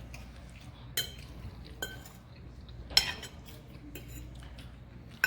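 Kitchen utensils and dishes clinking and knocking: a few separate strikes, the loudest about three seconds in, over a faint steady low hum.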